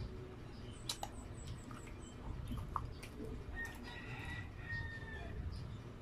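A rooster crowing faintly once, a held call of about a second and a half starting a little past halfway. A few short mouth clicks and smacks sound close to the microphone.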